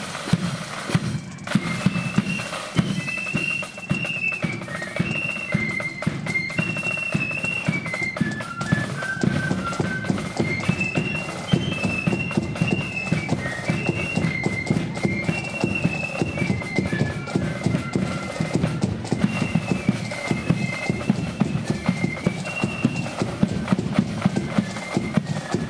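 Marching flute band playing a tune: a high flute melody over rapid, constant drumming with a bass drum beat.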